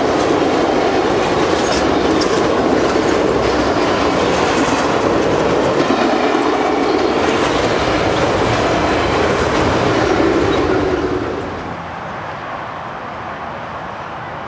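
Passenger train cars rolling past at speed, with a steady rumble and wheels clacking over the rails. The sound drops off sharply about eleven seconds in.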